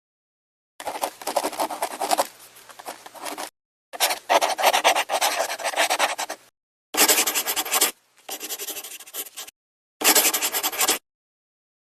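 Rapid, dense scratching clicks in four separate bursts with short silences between: three of about two and a half seconds each, then a last, shorter one of about a second.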